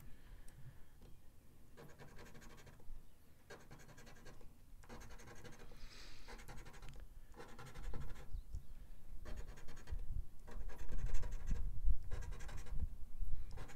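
A coin scratching the coating off a scratch-off lottery ticket in a run of short rasping strokes with brief pauses between them.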